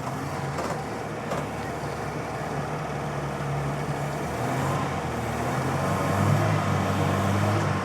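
Small car's engine running hard under load on a snowy climb, over a steady rushing noise; the engine note gets louder and rises about six seconds in.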